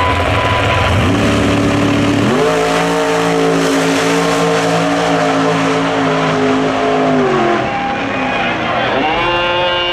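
Drag-racing car engine revving at the line, then launching at full throttle, held at a steady high pitch for about five seconds. It drops off about seven and a half seconds in, then rises again briefly near the end.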